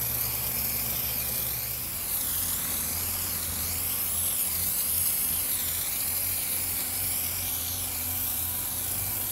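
Aerosol can of PlastiKote Garden spray paint hissing as paint is sprayed onto a wicker chair, a continuous hiss that wavers slightly in tone as the can is swept back and forth.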